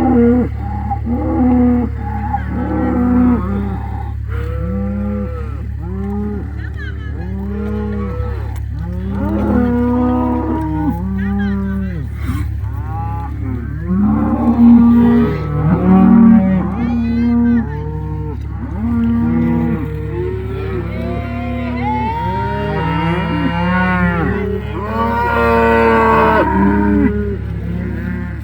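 A herd of cattle mooing continuously, many long calls overlapping one another, some deep and some higher-pitched, over a steady low hum.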